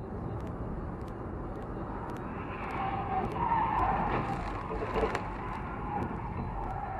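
Dashcam recording of highway driving: steady road and engine noise from inside the car. It swells about halfway through, when tyres squeal as a hatchback ahead swerves across the lanes.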